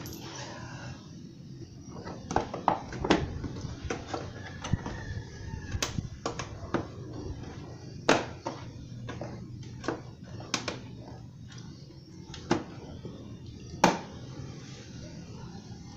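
Plastic front fairing panels of a Kymco Super Z 125 scooter being pressed and worked into their clips by hand: irregular sharp plastic clicks and knocks, the loudest a little before the end.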